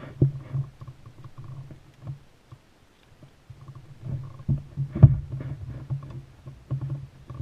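Low rumbling with irregular knocks from a fishing kayak on the water, and one loud thump about five seconds in.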